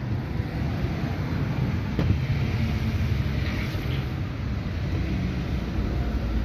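Steady low background rumble with a single sharp click about two seconds in.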